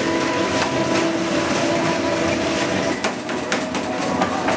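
Steady hum of bakery machinery running, with a few sharp clicks and taps from about three seconds in.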